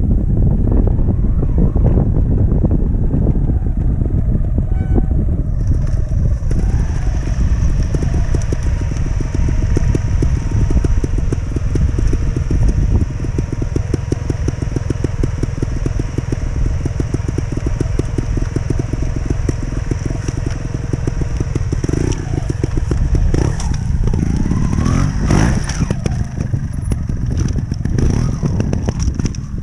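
Trials motorcycle engine running close by, with a steady drone from about six seconds in. Near the end the throttle is blipped in rising and falling revs as the bike climbs over concrete slabs.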